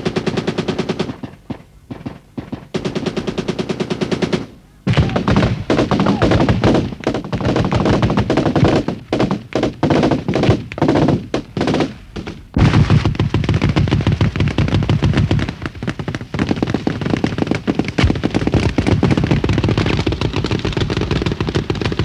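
Automatic weapons firing in rapid bursts, with short breaks in the first half, then almost unbroken fire from about halfway through.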